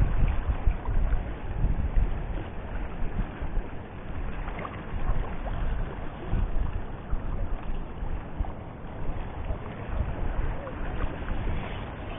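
Wind buffeting the microphone in uneven gusts, over a steady wash of sea.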